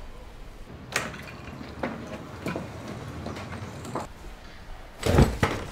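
Scattered light knocks and clicks in a small room, with a louder thump about five seconds in.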